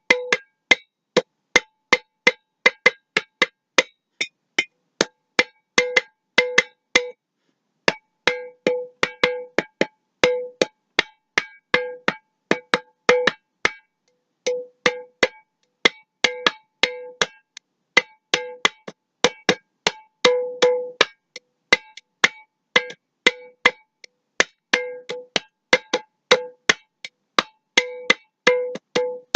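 Glass mason jar tapped over and over in an uneven, drum-like rhythm, each tap a sharp click with a short ringing note, with brief pauses now and then.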